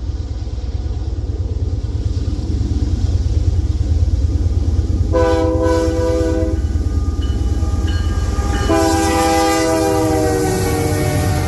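A diesel freight locomotive's air horn sounds a short blast, then a longer one that drops in pitch near the end, over the heavy low rumble of the passing train's GE diesel locomotives.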